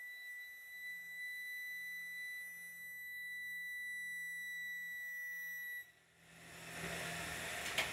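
A steady, high, pure whistle as oxygen flows from an oxy-acetylene torch into a balloon. The whistle cuts off abruptly about six seconds in.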